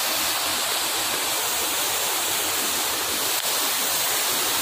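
Steady, even rushing of heavy rain and running floodwater.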